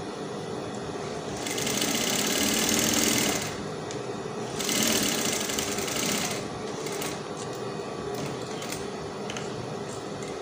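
Industrial straight-stitch sewing machine running a long basting stitch through layered organza, in two runs of about two seconds each, stopping in between.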